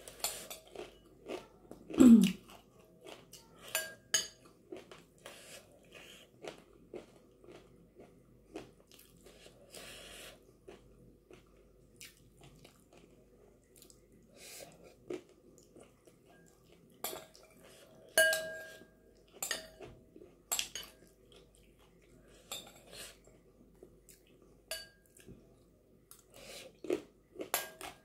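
Close-up eating: a metal spoon clinking and scraping against a glass bowl, with chewing and mouth sounds as chana chatpate is eaten. The clinks come irregularly, some ringing briefly, the clearest about eighteen seconds in, and a loud low knock comes about two seconds in.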